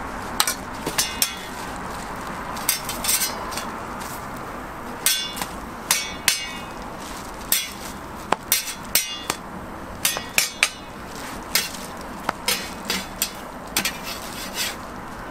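Metal spatula clanking and tapping against a flat steel griddle as bread slices are handled on it: many sharp, irregular metallic clicks, a few close together, over a steady background hiss.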